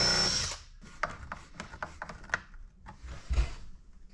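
Cordless drill running in a short burst with a high whine for about half a second, then light knocks, taps and rubbing of wooden pieces being handled on a workbench, with one heavier thump about three seconds in.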